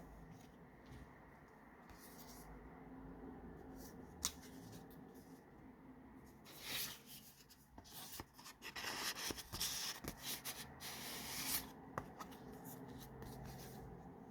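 Paper pages of a handmade junk journal being handled and turned, over a faint steady hum. There is a single sharp click about four seconds in and a short swish near seven seconds, then a longer stretch of paper rustling in the middle.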